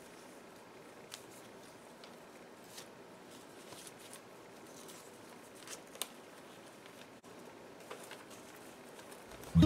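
Faint rustling and soft crinkles of thin old letter paper as the pages are turned one after another, with a few sharper clicks, over a low hiss. Acoustic guitar music starts at the very end.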